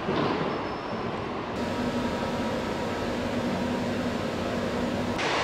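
Steady factory machinery noise, changing abruptly about a second and a half in and again near the end, with a faint low hum in between.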